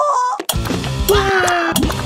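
Cartoon background music with a steady beat, with a short rising glide at the start and a longer falling glide about a second in laid over it.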